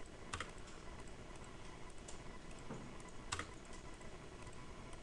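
Scattered clicks of a computer keyboard and mouse over a faint steady hiss, with two louder clicks, one about half a second in and one past the three-second mark.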